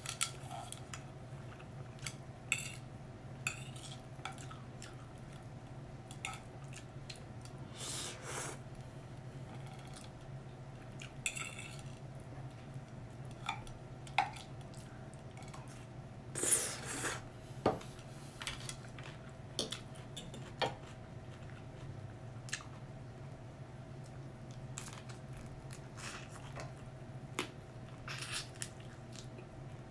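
A fork clinking and scraping on a plate now and then while eating, over a steady low hum.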